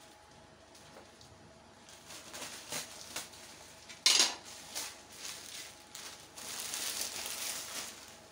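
Metal utensils clinking and knocking against a cooking pot, with a few light clicks and one sharp clank about four seconds in. A stretch of hiss follows near the end.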